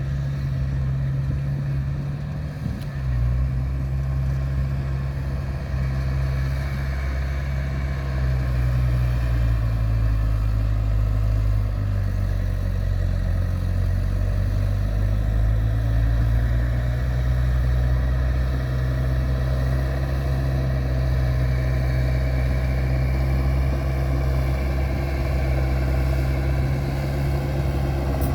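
A vehicle engine running steadily at a low, even pitch, its speed shifting slightly now and then.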